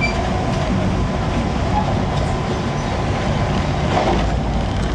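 Amtrak Amfleet I passenger coach running at high speed, heard from inside the coach: a steady low rumble of wheels on rail and rushing noise.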